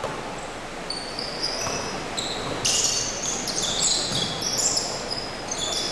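Basketball shoes squeaking on a wooden gym floor: a flurry of short, high squeaks from many players, thickest about three to four and a half seconds in. A basketball bounces a few times.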